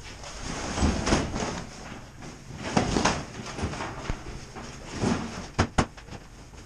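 Nylon walls of an insulated Eskimo pop-up ice shelter rustling and swishing in several surges as the shelter is collapsed and flattened onto a concrete floor. Two sharp clicks come close together near the end.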